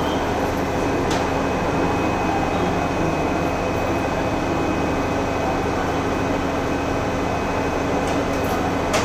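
Steady engine drone of a fire engine running below, with a constant hum, and a faint click about a second in and another near the end.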